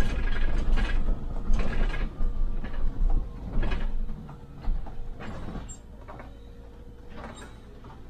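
Inside a MAN Lion's City hybrid city bus on the move: low rumble with irregular rattles and clicks from the bodywork and fittings. About halfway through it drops to a much quieter steady hum.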